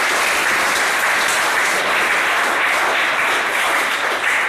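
Audience applauding: a steady, dense round of clapping.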